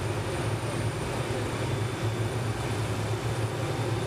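MD 500-series police helicopter running on the ground before takeoff: the turbine engine runs steadily with a thin high whine, over the steady beat of the spinning main rotor.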